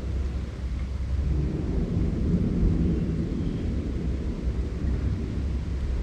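Wind howling through a forest in low, rumbling gusts that swell and ease, with a faint hollow moan about a second and a half in.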